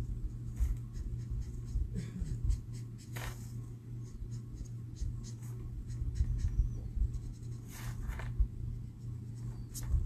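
Marker nib rubbing across stamped cardstock in many short, light coloring strokes, scratchy and intermittent, over a steady low hum.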